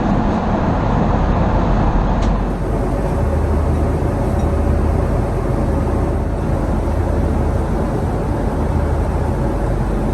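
Steady, loud cabin noise inside a Boeing 777-200ER airliner: the even rush of jet engines and airflow, heaviest in the low end.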